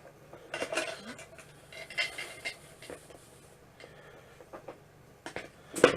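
Light handling noises on a workbench: scattered small clicks, taps and scrapes of things being picked up and set down, with a few sharper clicks near the end.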